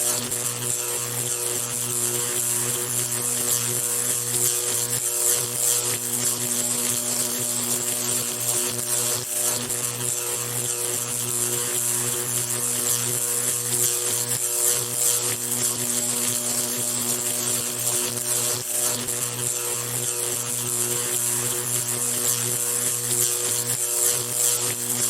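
Electric arc buzzing continuously: a steady electrical hum under a dense, unbroken crackle and sizzle of sparking.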